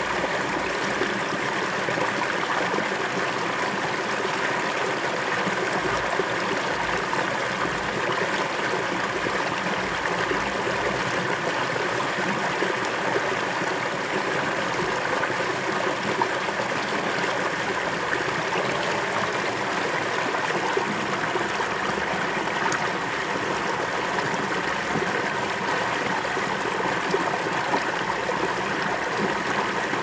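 Shallow rocky stream, water spilling over a small drop between boulders and running over stones, in a steady, even rush.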